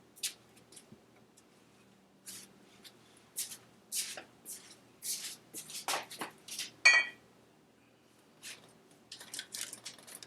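Aerosol can of copper Spray-A-Gasket high-temperature sealant spraying in a series of short hissing bursts onto an engine's cylinder gasket, with a brief pause and then a quicker cluster of bursts near the end.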